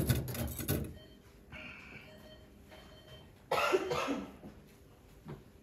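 Coughing: a loud burst of coughs right at the start and another about three and a half seconds in.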